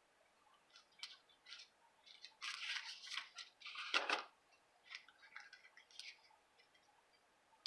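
Faint rustling and scraping of cardstock and braided linen trim as a knot is tied around a small paper treat holder, in scattered short rustles, the loudest about four seconds in.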